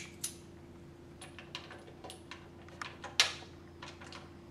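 Small brass slotted masses clinking against each other and against a metal mass hanger as they are fitted on by hand: a dozen or so light, irregular metallic clicks, the loudest about three seconds in.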